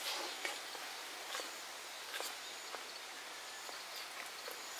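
Rain falling: a steady hiss with scattered ticks of individual drops.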